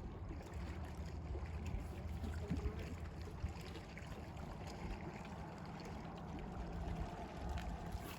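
Lakeside ambience: water lapping, with low wind rumble on the microphone and a few faint clicks.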